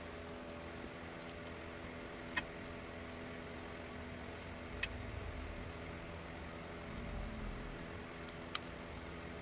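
Steady electrical hum in a small workshop. Three faint, sharp clicks come from small items being handled on the workbench, the last and loudest near the end.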